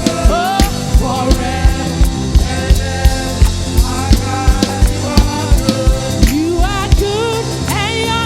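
Gospel worship band playing, with a steady drum-kit beat under singing; the drums drop out about seven seconds in.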